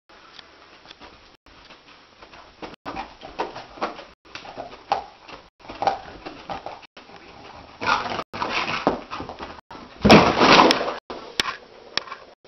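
A sleeping dog whimpering and yipping in short sounds while its legs paddle on the carpet. About ten seconds in comes the loudest part, a burst of scrambling noise about a second long as it gets to its feet.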